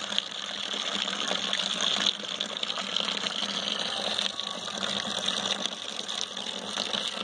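Dark stout wort pouring in a steady stream into a foaming plastic bucket, a continuous splashing hiss.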